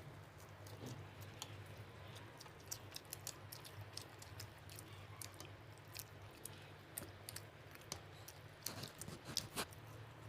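Close-up eating sounds: mouth clicks and smacks of someone chewing mutton biryani, with a steady low hum behind.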